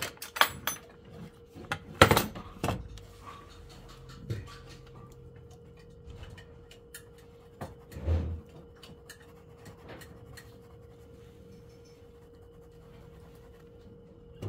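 Scattered clicks and knocks of oil-painting tools, brush and palette, the loudest about two seconds in and a duller thump near eight seconds, over a steady faint hum.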